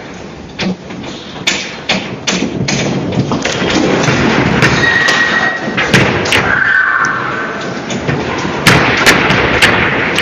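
Earthquake sound effect of a building shaking: a rumble that builds, with knocks and thuds rattling through it and a couple of brief high creaks in the middle. Several loud sharp bangs come near the end.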